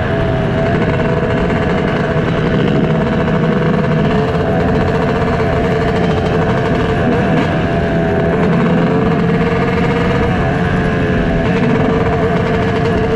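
Dirt bike engine running at a steady cruising speed, heard from on the bike, its pitch holding with only slight wavers.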